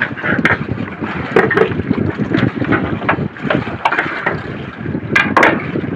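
Wind buffeting the microphone on a small fishing boat at sea, with water sounds and scattered short knocks, the loudest a pair about five seconds in.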